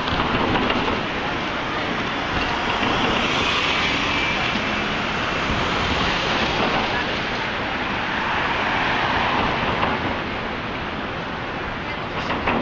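City traffic noise, a steady rush of passing vehicles that swells and fades, with wind rumbling on the microphone.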